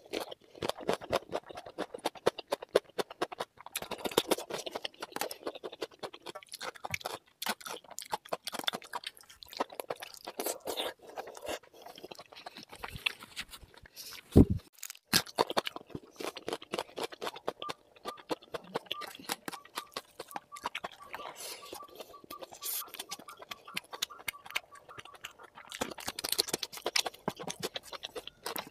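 A person chewing a mouthful of rice and chicken skin curry close to the microphone, with many quick mouth clicks and some crunchy bites. There is one louder knock about fourteen seconds in.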